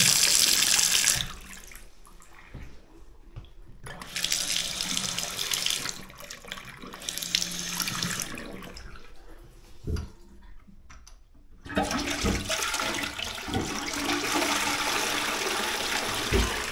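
A bathroom basin tap running into the sink in spells, turned on and off. About twelve seconds in, a push-button toilet is flushed, and its water rushes steadily to the end. There is a short knock just before the flush.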